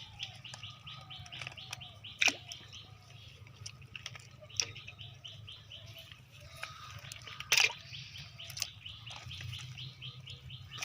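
Rapid, even chirping from a bird, short high notes repeated about six times a second, with a few sharp knocks or splashes over it.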